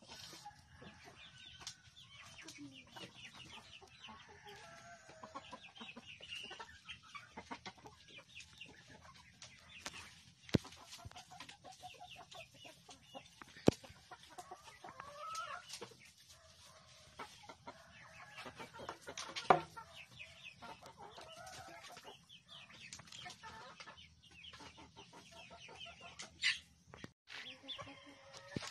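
A flock of chickens clucking, with short calls scattered throughout. A few sharp clicks or knocks stand out, around a third and two-thirds of the way through.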